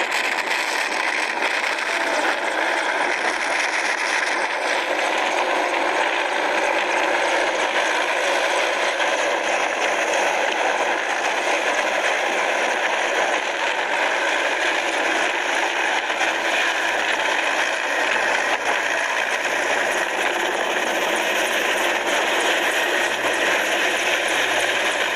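Military transport helicopter flying low, its rotor and engine making a steady, unbroken noise.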